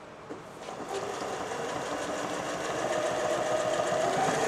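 Janome Jem Platinum 760 computerised sewing machine sewing straight stitch in reverse, with the reverse button pressed. A small click comes just before the machine starts about a second in, and it picks up speed and gets louder toward the end.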